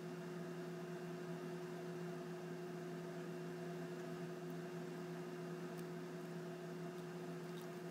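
Faint, steady electrical hum with a few evenly spaced overtones, and a few very faint ticks near the end.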